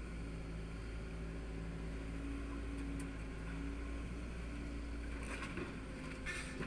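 Demolition excavator's diesel engine running steadily at a distance, a low hum with a couple of held tones. A few short rattles come in near the end.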